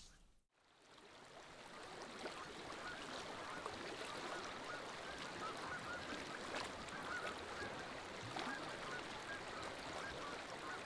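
Faint outdoor ambience fading in about a second in, with many short, distant bird calls scattered through it.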